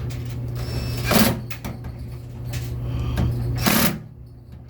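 Hands-on repair work on a washing machine: handling of tools and parts, with two short, louder noises, one about a second in and one near the end, over a steady low hum.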